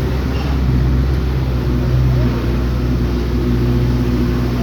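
Vehicle engine running steadily while driving: a constant low drone with no change in pitch.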